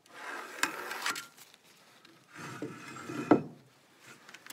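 Aluminium level, used as a straightedge, sliding and scraping across a marine-plywood boat bottom in two strokes of about a second each, each with a sharp knock; the knock a little over three seconds in is the loudest.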